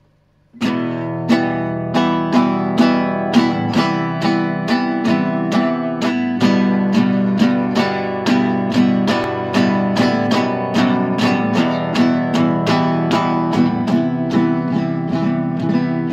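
Acoustic guitar played in a steady rhythm of strummed strokes, about two to three a second, starting about half a second in.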